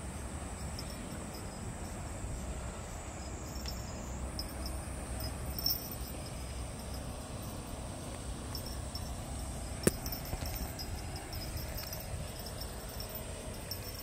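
Outdoor ambience: a steady low rumble with faint, intermittent high insect chirping over it, and one sharp click about ten seconds in.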